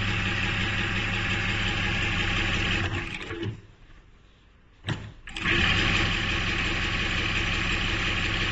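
Zoyer ZY1968 computerized lockstitch sewing machine running steadily as it stitches. It stops a little over three seconds in, a single click comes just before five seconds, and it starts sewing again about half a second later.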